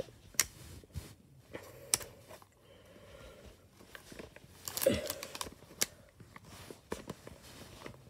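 Hands turning and handling a plastic cylinder puzzle box: scattered light plastic clicks and knocks, with a brief louder clatter about five seconds in.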